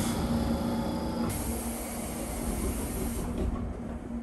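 Electric commuter train standing at a platform with its doors open: a steady hum from the train's equipment, with a stretch of hiss that starts abruptly about a second in and fades out about three seconds in.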